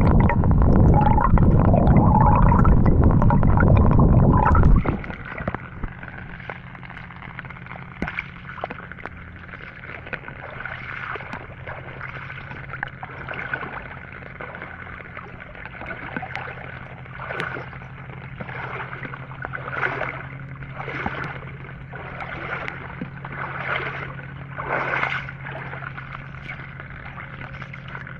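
Water sloshing and gurgling. A loud, low rumbling rush fills the first five seconds and cuts off suddenly, then quieter water continues over a steady low hum, with soft splashes coming about once a second near the end.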